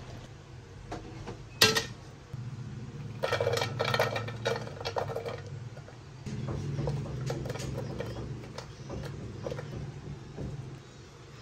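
A sharp knock, then sliced red onions tipped into a stainless steel pan, the pieces pattering on the bare metal for about two seconds. Slices of ginger follow with scattered light ticks as they land, over a steady low hum.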